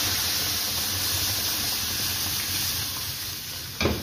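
Hot oil tadka hissing and spluttering as boiled whole masoor lentils with their liquid are poured into the pan, the hiss slowly dying down. A sharp knock comes near the end.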